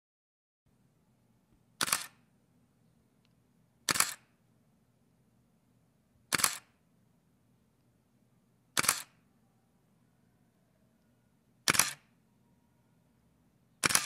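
Canon 5D digital SLR shutter released with its mirror and lens, five times at intervals of about two to three seconds, with a sixth at the very end. Each release is a quick double click.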